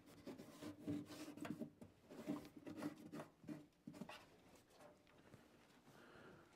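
Microfiber cloth rubbing and wiping across the furnace collector box face in short, irregular scrubbing strokes as excess sealant is wiped away. The strokes are quiet and die down about four seconds in.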